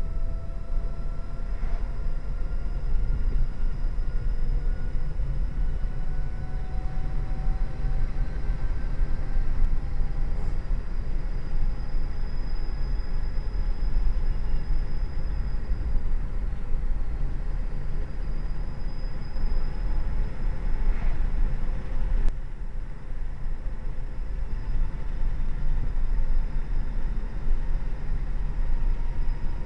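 Inside the Ripperton Mira electric car on the move, with a steady low road-and-tyre rumble. Over it runs a thin whine from its hub motors and controllers, which climbs slowly in pitch over the first ten seconds as the car gains speed. About two-thirds of the way through there is a single sharp click.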